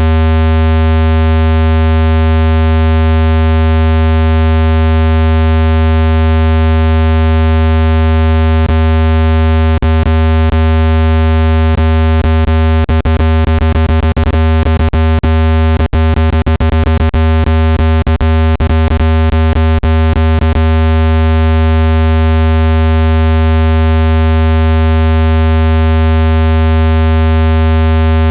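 A loud, steady, low electronic tone with a buzzy row of overtones: a speaker-cleaning tone, played at full volume to shake trapped water out of a phone speaker. Short clicks crackle through it, mostly in the middle stretch.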